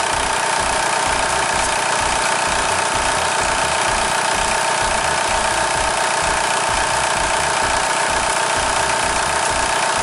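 Volkswagen New Beetle engine idling, heard close up in the open engine bay, with a steady whine over the engine noise while the A/C system is charged with R134a at the low-pressure port.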